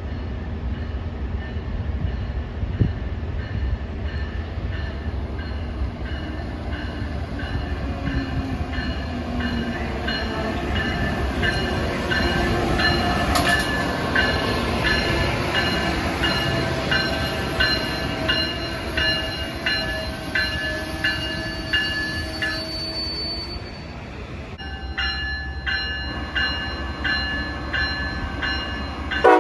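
Amtrak train hauled by an ACS-64 electric locomotive rolling in alongside the platform, with a steady deep rumble from wheels and motors and slowly falling tones as it slows. From about halfway through, a ringing strike repeats about twice a second over steady high tones.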